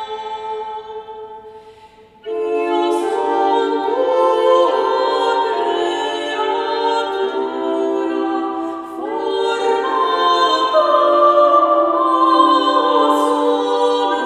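Portative organ playing sustained chords with a woman singing. A phrase dies away, then a new phrase starts suddenly about two seconds in and is held and moves on through the rest.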